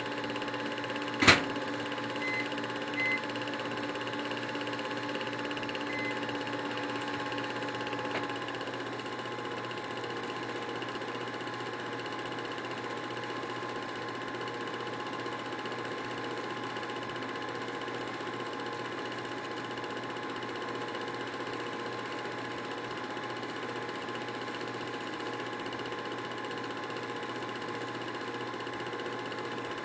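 Film projector running with a steady mechanical whir and hum. A single sharp click about a second in, and a change in the hum about eight seconds in as some of its lower tones drop away.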